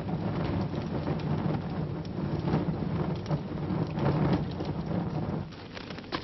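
Heavy rain with a long roll of thunder that dies away about five and a half seconds in.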